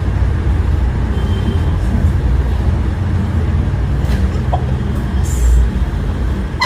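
Steady low rumble of road traffic, with a brief loud blast right at the end.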